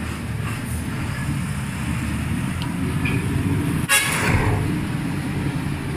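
Steady low rumble of an ordinary bus's engine and road noise heard from inside the moving bus, with one short, loud horn toot about four seconds in.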